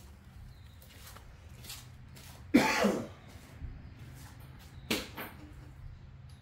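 A short cough about two and a half seconds in, falling in pitch, over a faint steady low hum. A sharp click comes near five seconds.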